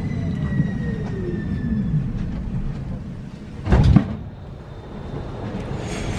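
Škoda Varsovia metro train slowing to a stop at a station: the electric drive's whine falls in pitch over rumbling running gear. A loud short burst of noise about four seconds in marks the stop, and a sliding-door sound starts near the end.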